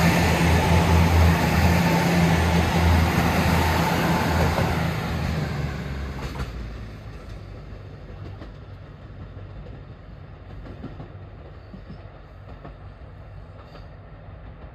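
KiHa 85 series diesel limited express train running past and pulling away down the line: a steady diesel engine drone with wheel and rail noise, loud for about the first five seconds, then fading away as it recedes.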